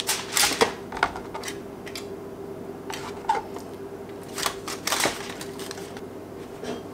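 Aluminium foil crinkling, with scattered clicks and rustles, as raw fish fillets are laid into a foil-lined baking pan; a faint steady hum runs underneath.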